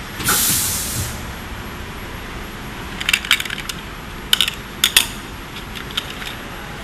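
Pneumatic ultrasonic plastic welding machine at work: a short hiss, like air venting, about half a second in, then several groups of sharp clicks, like hard parts knocking.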